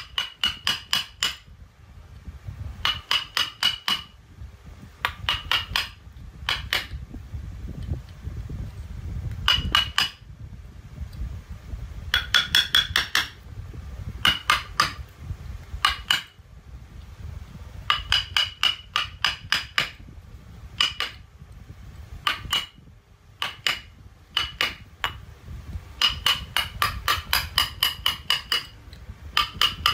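A round mallet tapping a wood-carving chisel into a hardwood figure, in quick bursts of about five or six blows a second separated by short pauses. Each blow gives a short, high ring.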